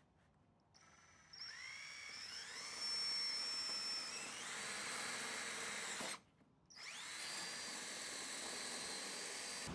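Power drill running: its whine rises as the motor spins up, then holds steady. It stops briefly about six seconds in, then spins up and runs again.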